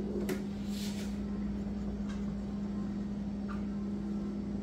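A spoon scraping and tapping thick frozen-fruit yogurt smoothie in a plastic blender jar, a few faint scrapes, over a steady low hum.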